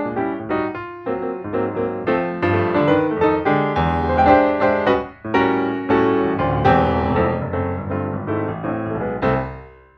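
Background piano music, a quick flow of notes that fades out near the end.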